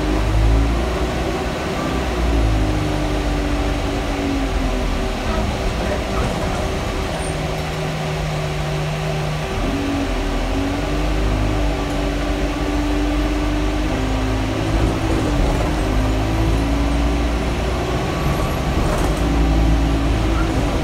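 Inside a double-decker bus: a loud cabin fan runs steadily with a constant hum, under the bus's engine and transmission whine, which rises and falls in pitch as the bus picks up speed and slows.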